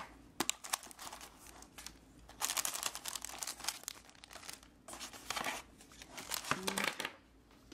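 Plastic-wrapped stationery packages and papers crinkling and rustling in several irregular bursts as they are lifted out of a cardboard box and set down.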